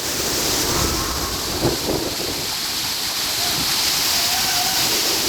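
Steady roar of rushing waterfall water in monsoon flood, with wind buffeting the microphone and faint distant voices.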